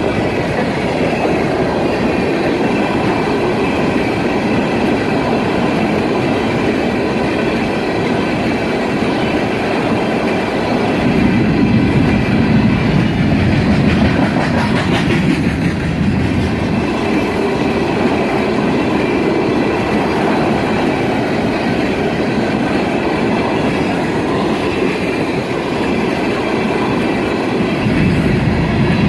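A Norfolk Southern freight train's cars rolling steadily past, wheels clacking over the rail joints.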